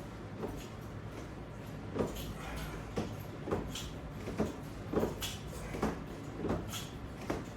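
A run of short knocks and clacks, about one a second, from resistance-band exercise gear being worked through reps.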